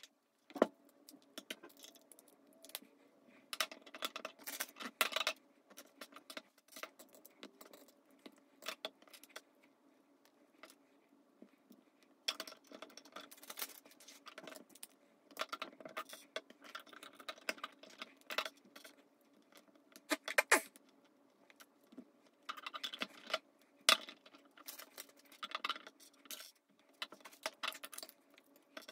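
Plastic Lego bricks clicking and rattling as they are handled, snapped together and set down on a wooden table, in irregular spells of small clicks with quieter gaps between.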